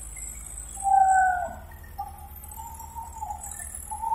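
Tractor engines running under heavy load in a tug-of-war, a low steady rumble. Over it comes a loud drawn-out high call about a second in, then a fainter wavering one.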